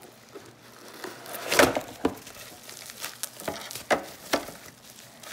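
Cardboard box and plastic bubble wrap being handled while unpacking, with irregular rustling and crinkling. The loudest rustle comes about a second and a half in, followed by a few sharp crackles.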